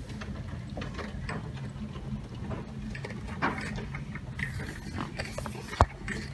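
Rain ticking irregularly against a window pane over a steady low mechanical hum, with one sharp click near the end.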